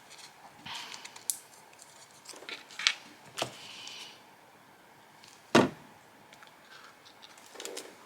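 Handling of paper and plastic-backed die-cut pieces: soft rustling with several sharp taps and clicks, the loudest a little past halfway.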